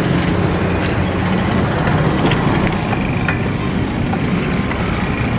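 Steady wind rumble on a chest-mounted phone's microphone while riding a bicycle, mixed with tyre and road noise, with a few light clicks from the bike.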